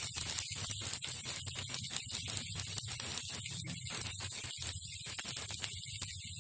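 Semolina uttapam batter frying in oil on a hot tawa: a steady sizzle full of small crackling pops.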